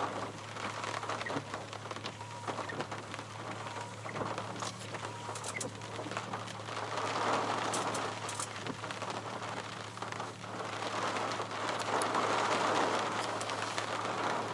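Tropical-storm rain and wind: a steady hiss of rain with many small drop ticks, swelling louder in gusts about halfway through and again near the end, over a steady low hum.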